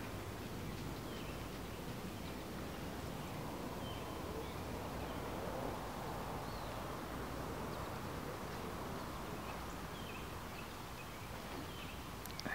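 Outdoor ambience: a steady background noise with faint bird chirps now and then.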